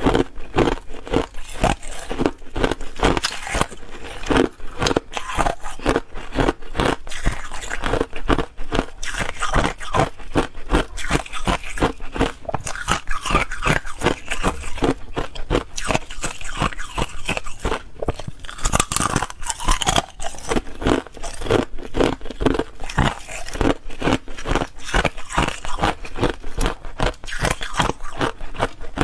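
Clear ice sticks being bitten and chewed, a continuous run of sharp cracks and crunches, recorded close up on a clip-on microphone.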